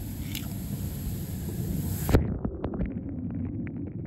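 Steady rush of churning pool water, then about halfway through a sharp splash as a small die-cast toy car drops in, after which the sound turns muffled and underwater, with scattered faint clicks.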